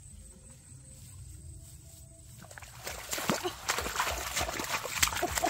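Hands splashing and slapping hard in shallow muddy water, groping for fish by hand. The splashing starts about halfway through and comes in quick, irregular splashes.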